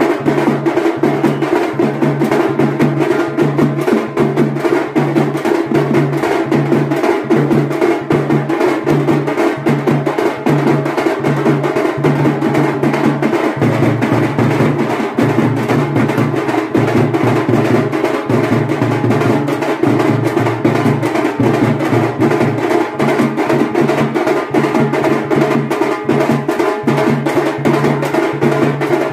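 Fast, dense drumming over a repeating low bass pattern: loud, percussion-heavy music.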